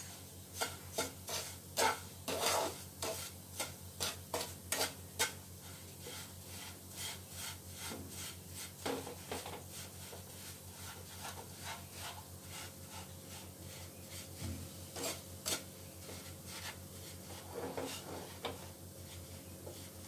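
Wooden spatula scraping and stirring a dry, crumbly mix of roasted semolina and khoya around a nonstick frying pan, in quick repeated strokes that come thickest in the first five seconds and turn sparser after.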